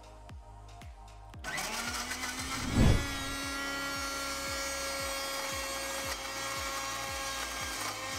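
Countertop blender motor switches on about one and a half seconds in and runs steadily, blending onion and a little water into a paste, with a loud low thump just after it starts. Background music with a steady beat plays throughout.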